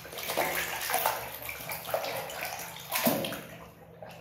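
Soapy water sloshing and splashing as a hand swishes a toy through it to wash it, in uneven strokes with a louder splash about three seconds in.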